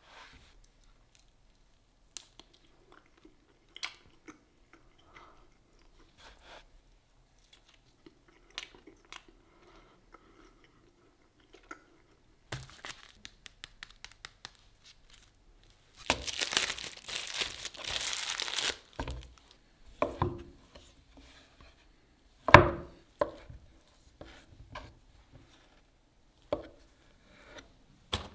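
Food packaging being handled: quiet scattered taps at first, then a few seconds of loud tearing and crinkling a little past the middle, followed by a sharp knock and more light handling sounds.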